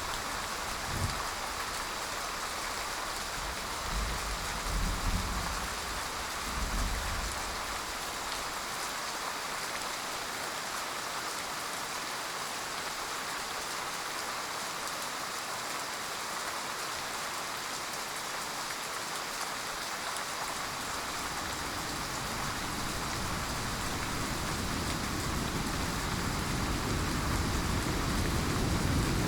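Steady heavy rain falling. Low rumbles of thunder come about four to seven seconds in, and another rumble swells gradually near the end.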